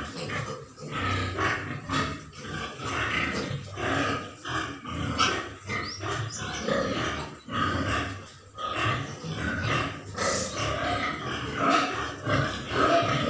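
A white pig grunting, a steady run of rough grunts coming one after another, about two a second.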